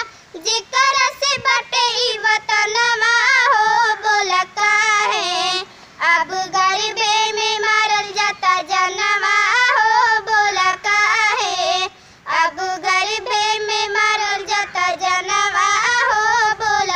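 A young girl singing a Bhojpuri song unaccompanied in a high voice, in long melodic phrases with short breaks for breath.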